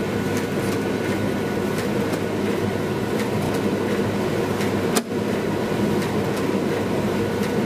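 Miele PT 7131 tumble dryer running with a steady motor and fan hum, and one sharp click about five seconds in as a heating-element contactor pulls in. The dryer blows cold air first, then switches on the heater relays once it has confirmed that air is circulating.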